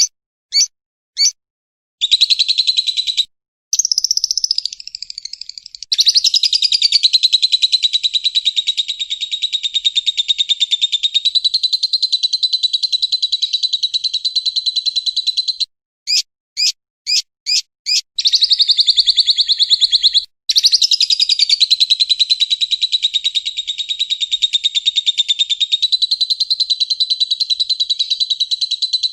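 Lovebird song: long, fast trills held for many seconds at a time, broken by short runs of separate chirps near the start and about halfway through.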